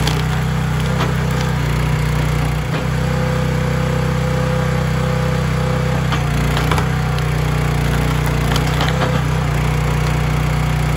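Small gas engine of a hydraulic log splitter running steadily while a round of wood is pushed onto the wedge and split, with scattered sharp cracks and pops as the wood gives way.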